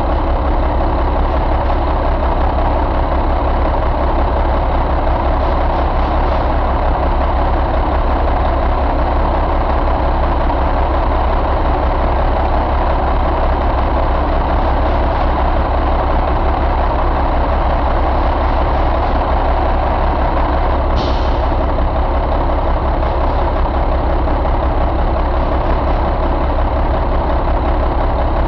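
Caterpillar 3176 inline-six diesel truck engine running steadily at idle. A short hiss cuts in about three quarters of the way through.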